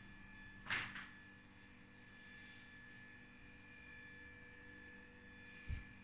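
Faint steady electrical hum with a thin high whine. A short sharp knock comes just under a second in, with a softer one right after, and a brief low thump near the end.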